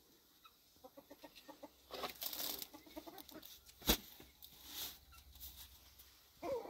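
Chickens clucking faintly, with the papery rustle of thin flatbread being lifted off a domed saj griddle and laid on a stack, and one sharp knock about four seconds in.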